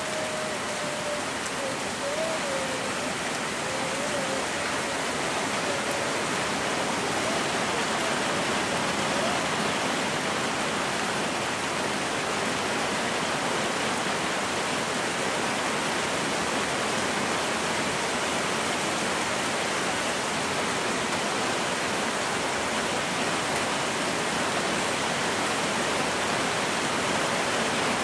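Heavy rain pouring steadily onto the ground, rooftops and a water-filled concrete basin, an unbroken dense hiss of many drops at an even level.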